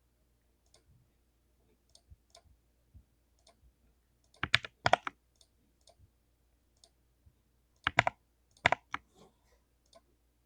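Keystrokes on a full-size mechanical keyboard fitted with lubed Bonanza Blue switches: scattered light clicks, with two bursts of several louder, sharper key presses about halfway through and again near the end.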